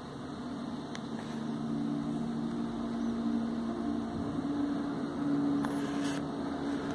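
A steady low mechanical hum carrying a couple of steady tones, growing a little louder, with two faint clicks.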